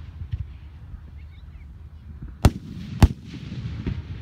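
Aerial firework shells bursting overhead: two loud, sharp bangs about half a second apart a little past the middle, with fainter pops before and after.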